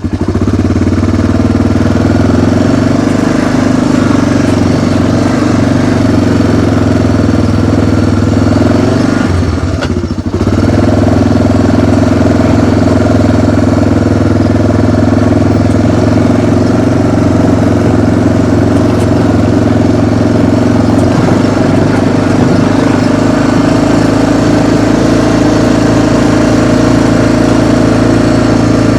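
Engine of a small riding vehicle running steadily while under way, with a brief dip in level about ten seconds in.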